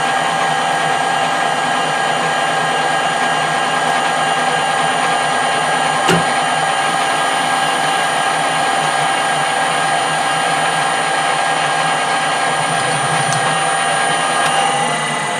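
Metal lathe running steadily with a high-pitched whine while taking a cut, with one sharp click about six seconds in; the whine begins to fade near the end.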